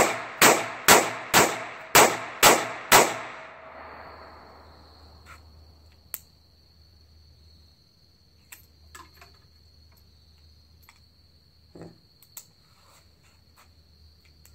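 Iver Johnson 3rd Model Safety Automatic break-top revolver firing seven .22 Long Rifle high-velocity shots in quick succession, about two a second, each with a brief ringing echo. Afterwards the revolver is handled with a few faint clicks, over crickets' steady trill.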